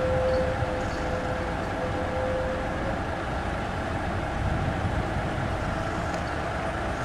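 Steady, even noise from the steam locomotive Calumet & Hecla #3 "Torch Lake" standing at rest, with a faint steady tone that fades out about three seconds in.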